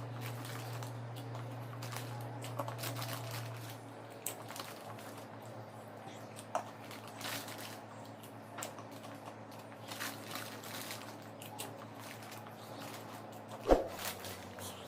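Faint scattered crunches and clicks of someone chewing spicy corn puffs, over a low hum, with one sharper thump near the end.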